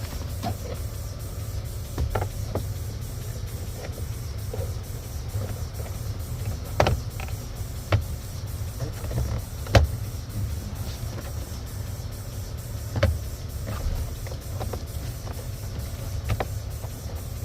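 Scattered clicks and knocks of plastic trim being handled, typical of a cabin air filter housing and glove box being refitted. Under them runs a steady low rumble.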